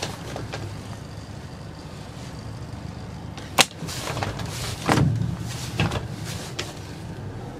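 Motorboat engine running low and steady while the boat manoeuvres slowly. A single sharp click comes about three and a half seconds in, followed by a few duller knocks.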